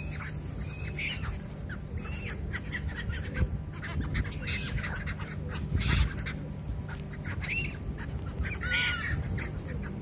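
A flock of gulls calling in short, scattered squawks, one after another, over a steady low background rumble.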